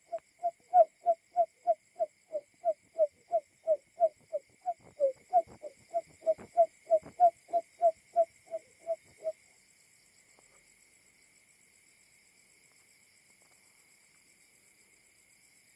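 Barred buttonquail call (a simulated male call used as a lure): a rapid series of short hooting notes, about three a second, that stops about nine seconds in. A faint steady high-pitched hum runs underneath.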